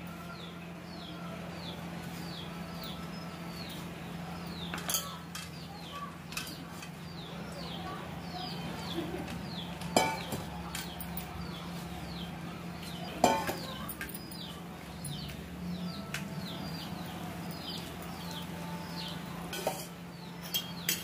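Steel plates and bowls clinking sharply a few times as masala paste is mixed by hand in a steel plate, over a steady low hum. A bird chirps in the background throughout, a short falling chirp repeated over and over.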